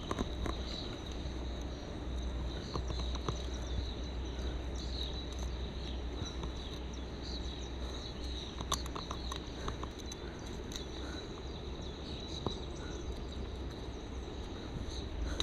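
Small metallic clicks and handling rustles as pliers work a hook out of a fish's mouth, a few of them clearer about three seconds and nine seconds in, over a steady low rumble and a steady high-pitched hiss.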